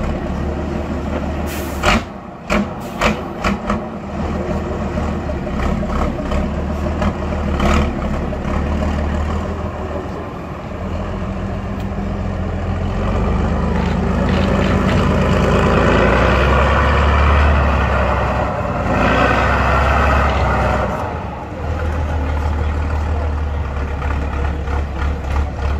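Off-road trial truck's engine running under load as it crawls up a grassy slope, growing louder and harder-working in the middle before easing off. A few sharp knocks in the first few seconds.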